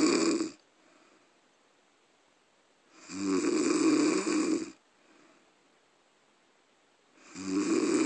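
Snoring: one long snore about every four seconds. One snore fades out just after the start, another in the middle lasts nearly two seconds, and a third begins near the end, with faint breaths between them.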